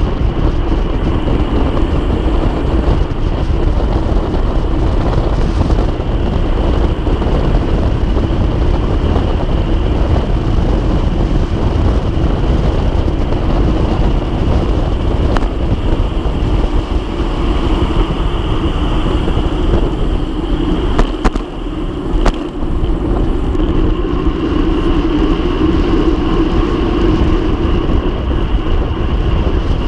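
Loud, steady wind rush on a handlebar-mounted camera's microphone, with tyre roar, from a road bike descending a mountain road at about 80 km/h. Briefly drops in level with a couple of clicks about 21 seconds in.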